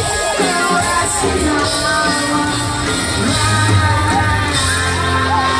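Live rock band playing a song with a singer, heard loud from within the audience.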